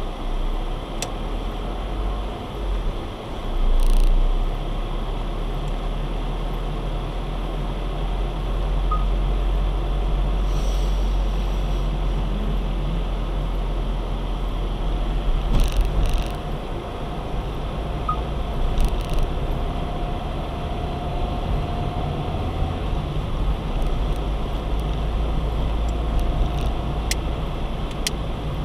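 Steady rumble of a car driving on wet roads, heard from inside the cabin through a dashcam microphone, with a few brief clicks and knocks.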